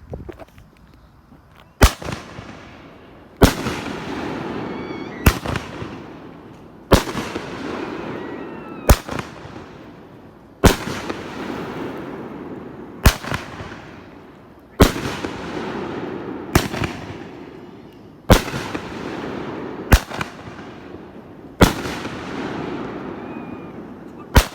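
A 'Wicked Good' consumer fireworks cake firing shot after shot, about thirteen sharp bangs spaced a second and a half to two seconds apart. Each bang is followed by a fading rush of noise, and faint whistles glide after a few of the shots.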